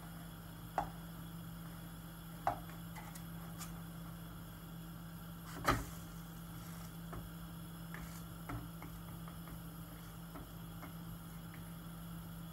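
A plastic spatula knocks against a non-stick frying pan a few times, loudest about halfway through, over a steady low hum.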